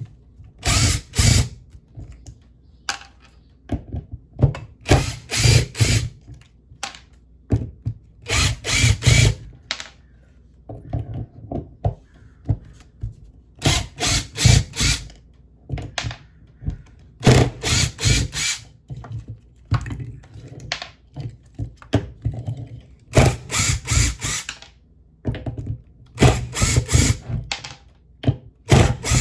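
Cordless drill-driver running in short bursts of about a second, eight or so in all, backing screws out of a hoverboard's hub-motor wheel, with knocks and clicks of handling between the bursts.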